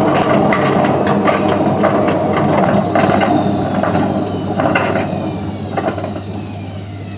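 Hotpoint Aquarius WMF520P washing machine winding down from a spin. The motor whine falls steadily in pitch while the drum knocks and rattles irregularly, and it grows quieter near the end. The racket is the sign of a broken drum spider.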